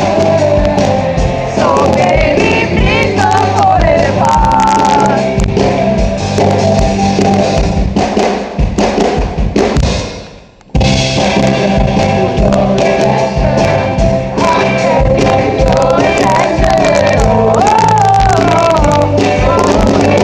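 A live band and singer perform a song at a soundcheck, the sound filling a large hall. The music drops out for under a second about halfway through, then resumes.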